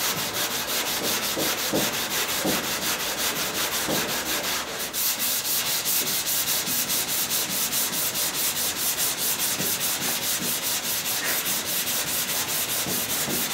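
Hand sanding block with 320-grit paper rubbed back and forth over a primed car fender in quick, even strokes, a steady scratchy hiss.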